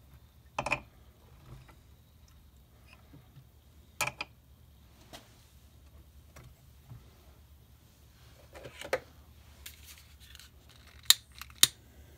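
Scattered clicks and light knocks of hands and a small tool on the metal fittings of a live steam model locomotive, a few seconds apart, with two sharp clicks near the end being the loudest.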